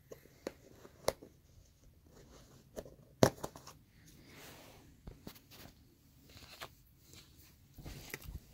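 Sparse sharp clicks and light handling knocks from a small container with a metal lid being opened on a bed, the loudest click about three seconds in as the lid comes off, with soft rustling near the end.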